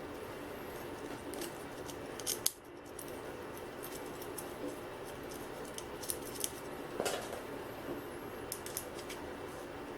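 Small metal clamp parts being handled and fitted: scattered light clicks and taps of a nut, screw and bar, the sharpest about two seconds in and a few more in the second half, over a steady low hum.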